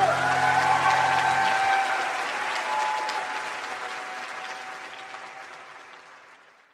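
Concert audience applauding and cheering at the end of a song as the last guitar chord rings out. The applause dies away gradually to silence near the end.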